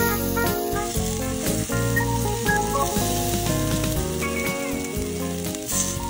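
Marinated beef short ribs sizzling on a wire grate over a charcoal grill, with steady sizzling throughout. Background music plays over it.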